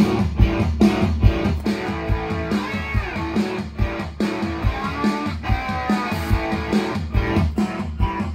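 Guitar-led music with a steady drum beat, played back through vintage Tesla hi-fi loudspeaker boxes as a sound test.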